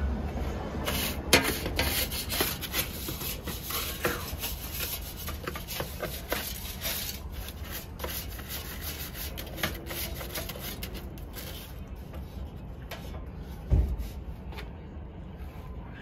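Stiff-bristled hand brush scrubbing caked cigarette dust off a box fan's blades and housing in quick, repeated scratchy strokes. The strokes are busiest in the first half and thin out later, with one dull thump about three-quarters of the way through.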